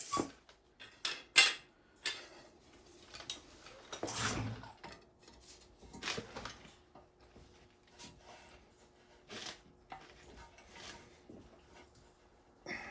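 Irregular metal clanks and knocks as a steering knuckle and tools are worked and handled to knock the knuckle free, the sharpest knock about a second and a half in.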